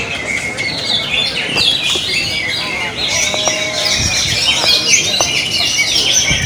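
Many caged green leafbirds (cucak ijo) singing at once: a dense, unbroken chorus of rapid, high chirps and trills.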